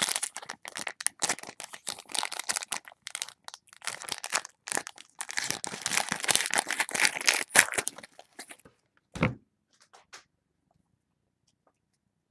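A football trading-card pack wrapper crinkling and tearing as it is opened by hand, for about eight seconds. It is followed by a single dull thump.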